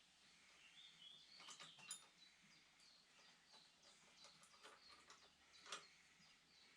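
Near silence: faint bird chirps and a few light clicks, the loudest about two seconds in and near six seconds in.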